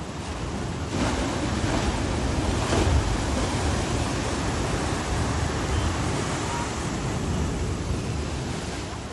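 Pacific surf breaking against sandstone rocks and washing back in foam. It swells about a second in, is loudest as a wave crashes near three seconds, then eases off.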